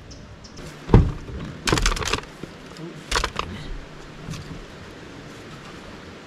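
A sharp knock, then two short bursts of clattering, from a folding camp table with metal legs being set up and handled.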